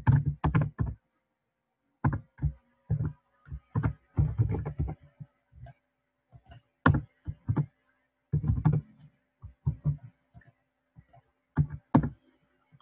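Typing on a computer keyboard: irregular keystrokes in quick runs with short pauses between them.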